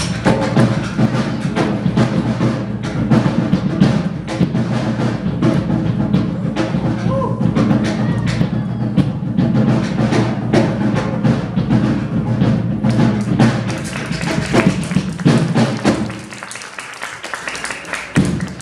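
Music with drums and percussion, with frequent sharp thuds. The music drops away about two and a half seconds before the end, and a single loud thud follows shortly after.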